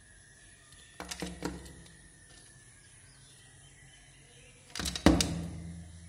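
Woodpecker's bill striking window glass: a quick run of about four sharp taps about a second in, then a second, louder run of taps near the end.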